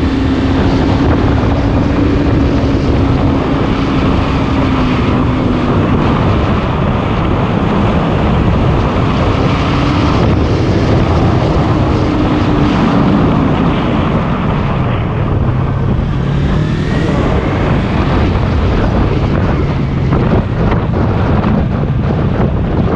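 Motorcycle engine running while riding, under heavy wind noise on the microphone. Its pitch rises and falls with the revs and drops lower in the second half.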